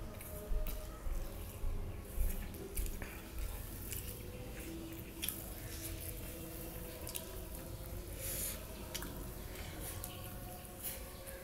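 Close-miked eating sounds: wet mouth clicks and smacks from chewing hand-mixed rice and coriander paste, with fingers squishing the rice on a steel plate. The clicks are irregular, with a few louder ones in the first three seconds.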